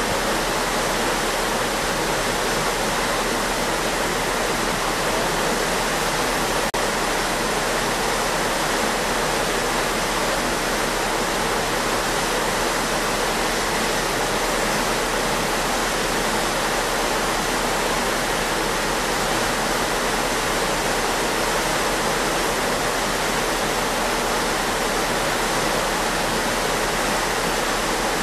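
Steady rushing hiss of water churning in a ship's wake, with no change in level.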